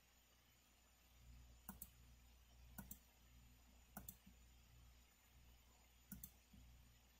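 Faint computer mouse clicks: four of them, each a quick press-and-release double tick, a second or two apart, over a faint low hum.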